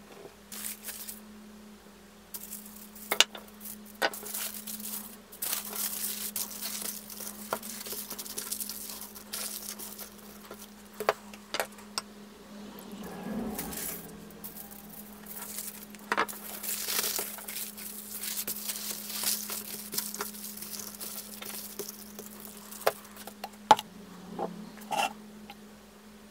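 Aluminium foil crinkling as pieces of resin-soaked cork are wrapped, mixed with clinks of a glass beaker and scattered knocks of handling on a workbench. A steady low hum runs underneath.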